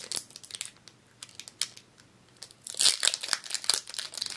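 Foil wrapper of a Pokémon card booster pack crinkling as it is opened: short crackles at first, a near-quiet pause, then a louder burst of crinkling from about two and a half seconds in.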